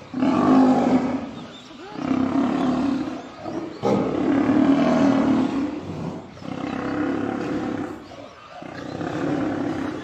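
Lions growling in about five long, rough bouts during a fight, as several lionesses pin down a male lion.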